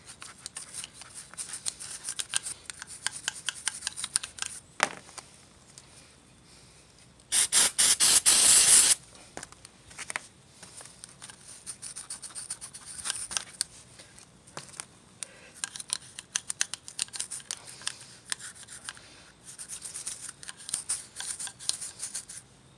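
Small stiff brush scrubbing the dirty inside of a throttle body in quick scratchy strokes, throttle body cleaner working the carbon deposits loose. About seven seconds in, a loud hissing spray of aerosol throttle body cleaner lasts about a second and a half.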